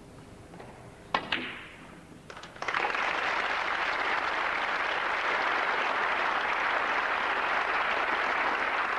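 A snooker shot: two sharp clicks of cue on cue ball and ball on ball about a second in, a few lighter ball clicks, then the audience applauding steadily from about three seconds in.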